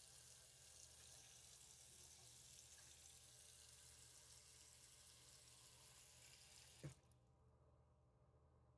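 Faint water running from a newly installed bathroom sink faucet down the drain, as the drain is checked; it cuts off abruptly with a small click about seven seconds in.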